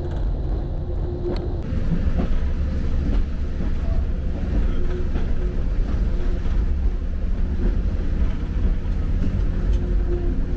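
Uerdingen railbus's diesel engine running under way, a steady low rumble with a faint whine that comes and goes.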